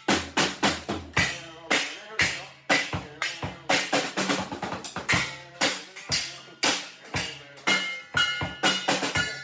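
Drum kit played in a steady beat, with strikes roughly twice a second and quicker fills in between, cymbals ringing over the hits.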